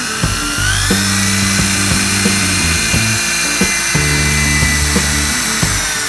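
A high-pitched power-tool whine, rising in pitch as it spins up about a second in, holding steady, then easing down near the end. Background music with a steady beat plays underneath.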